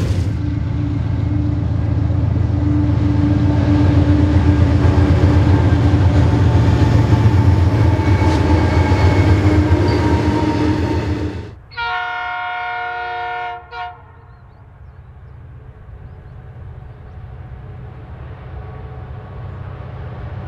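Diesel locomotives hauling a loaded iron ore train pass close by, with a loud, steady engine rumble and the noise of the wagons. This cuts off suddenly. Then a locomotive's multi-note horn sounds for under two seconds, followed by a short toot, and a distant train's engines grow slowly louder as it approaches.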